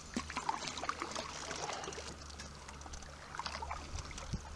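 Handling sounds from a trout being held and an old line worked out of its mouth: scattered small clicks, ticks and rustles over a low steady hum.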